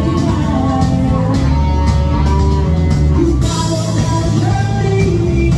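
Live rock band playing: electric guitars and bass over a drum kit, with a cymbal crash about three and a half seconds in.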